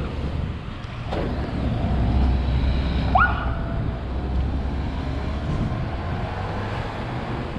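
Road traffic: a motor vehicle passing close by, its low engine rumble swelling about two seconds in and easing off, with a click about a second in and a short rising squeak near the middle.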